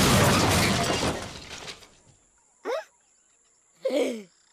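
Cartoon crash sound effect as a flying character smashes into a tree's leafy branches: a loud noisy rush that fades away over about two seconds. Then come two short squeaky sliding voice sounds.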